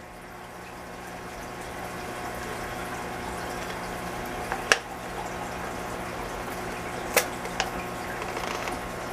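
Aquarium water noise: steady bubbling and trickling over a low motor hum, growing louder over the first few seconds. Sharp clicks come about halfway through and twice more a little later.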